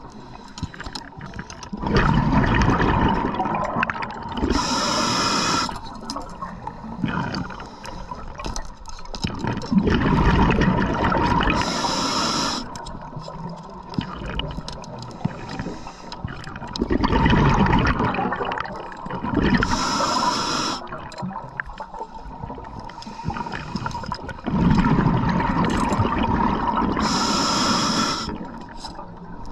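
Scuba diver breathing through a regulator underwater: four breath cycles, each a loud bubbling rumble of exhaled bubbles followed by a short hiss of the inhale.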